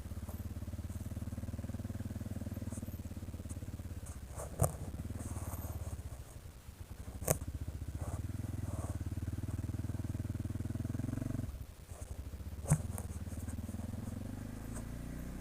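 ATV engine running steadily at low throttle, easing off twice, once briefly dropping away almost completely before picking up again. Three sharp knocks ring out along the way.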